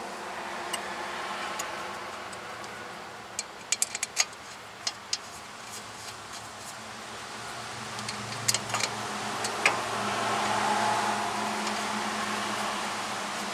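Light metallic clicks and clinks in small clusters as a front brake caliper is fitted back over the pads and its bolts are started by hand. Beneath them a steady low engine hum swells about two-thirds of the way in.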